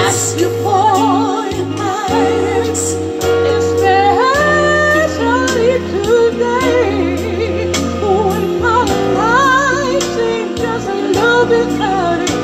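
A woman singing with vibrato and rising runs, amplified through a PA speaker over a recorded backing track of held chords and steady bass notes.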